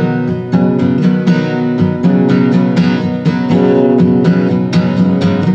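Acoustic guitar strummed in a steady rhythm, about four strokes a second, playing an instrumental passage without singing.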